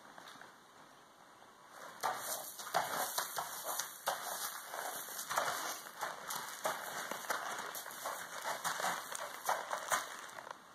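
Horse walking on sand arena footing: soft, irregular hoof crunches and scuffs, quieter at first and louder from about two seconds in.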